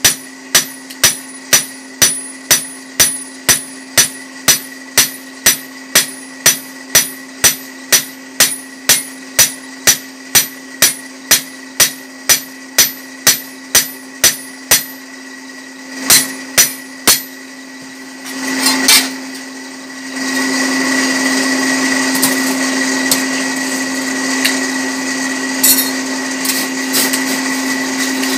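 Blacksmith's hammer beating a red-hot chopper blade on the anvil, about two ringing blows a second for some fifteen seconds, then three more blows, over the steady hum of the forge's electric blower. About twenty seconds in, a louder steady whir takes over.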